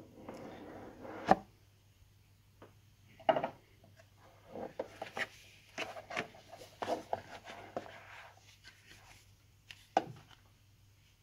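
Cardboard packaging handled by hand: a sliding rub as the outer box is worked off, a sharp knock about a second in, then scattered taps and rustles as the inner box's flap is opened and a card envelope lifted out, with another knock near the end.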